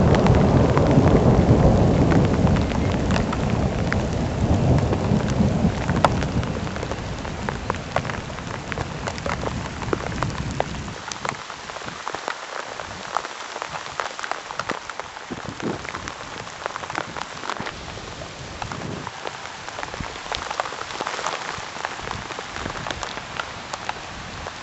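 Thunder rumbling low and fading over the first ten seconds with rain falling, then heavy rain pattering, with many single drops ticking sharply close to the microphone.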